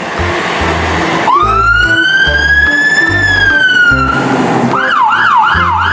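A siren: after a second of hiss, one slow wail rises and then falls back, and about five seconds in it switches to a fast yelp at about four cycles a second. A steady background music beat runs underneath.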